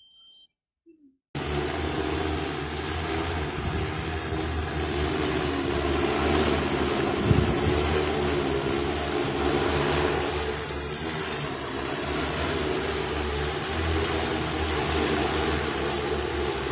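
Propellers of a large multirotor cleaning drone spinning as it lifts off and hovers: a steady whirr over a low pitched hum, starting suddenly about a second in. A brief low thump about seven seconds in.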